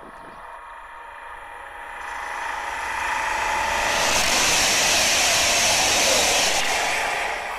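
CAF-built YHT high-speed electric train (HT65000) passing close at speed: a rushing hiss of air and wheels on rail that swells for a few seconds, stays loud while the cars go by, then eases off near the end.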